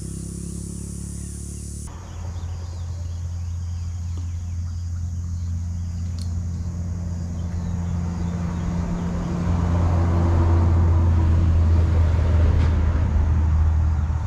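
An engine running with a steady low hum, growing louder over the first ten seconds and easing slightly near the end.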